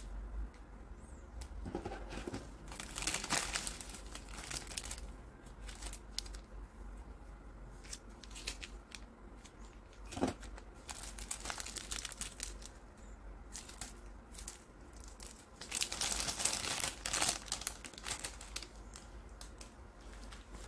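Plastic instant-noodle wrapper and foil seasoning sachets crinkling as they are handled, in irregular bursts that are loudest about three seconds and sixteen seconds in. One sharp tap about ten seconds in.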